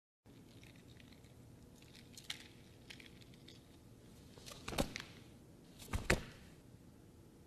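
Quiet room tone with a few soft knocks and clatters, the two loudest about a second apart midway through.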